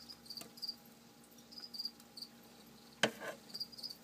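Feeder crickets chirping in short, high chirps that recur irregularly several times a second. About three seconds in there is a single sharp knock.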